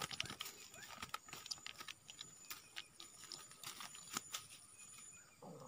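Irregular clicks and crackles of dry grass and fishing tackle as a small fish is handled and unhooked by hand.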